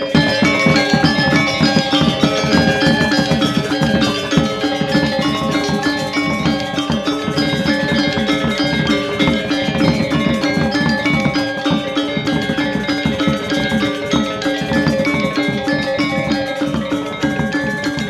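Balinese gamelan ensemble playing dance accompaniment: bronze metallophones ringing in fast, dense figures over drums, steady and loud.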